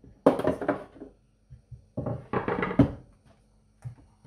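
Ice-cube tray of frozen green chutney being handled on a wooden chopping board as the cubes are pushed out: two bursts of knocks and crackling, each under a second long, the second about two seconds in.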